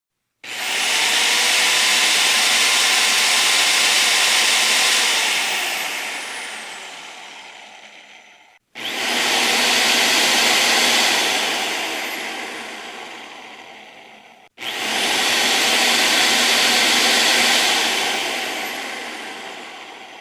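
Electric drill run three times: each time it starts abruptly, runs at steady speed for about four to five seconds after release, then winds down and fades over a few seconds.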